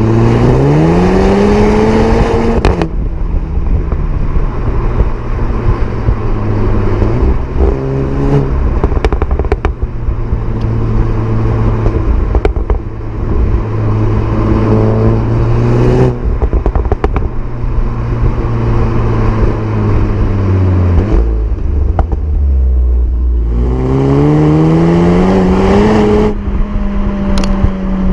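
SEAT Leon Cupra 300's 2.0-litre turbocharged four-cylinder engine revving hard, its pitch climbing steeply and cutting off sharply about three seconds in. It then runs at steady revs for a long stretch with a few short sharp cracks, climbs steeply again near the end and drops back.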